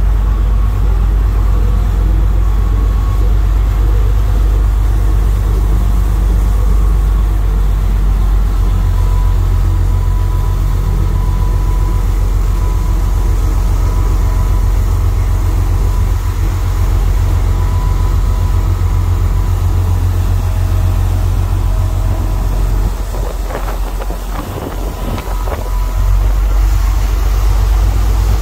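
Jet Express passenger ferry's engines rumbling steadily as it manoeuvres alongside the dock, dipping briefly a few seconds before the end and then coming back up.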